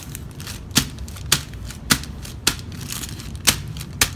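Six sharp pops, one after another, as the foil seals of an electrolyte container burst while the container is pressed down onto a new motorcycle battery's filler ports, letting the acid run into the cells.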